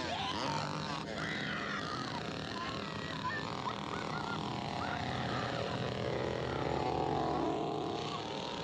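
Chainsaw engine running steadily, with short high cries over it.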